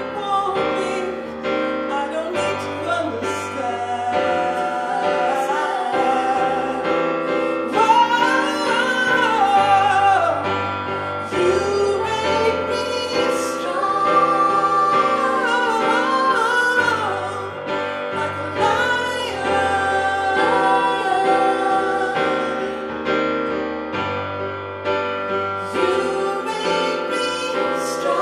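A woman sings a melody with long held notes into a microphone, over sustained keyboard chords.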